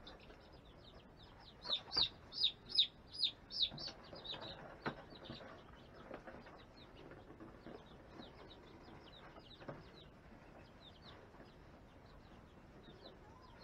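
A young chick peeping, a run of about six loud, falling peeps a couple of seconds in, then softer peeps on and off.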